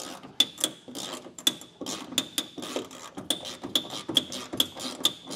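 Hand socket ratchet clicking steadily as a bolt is backed out by hand, about four to five clicks a second with a light metallic ring on each click.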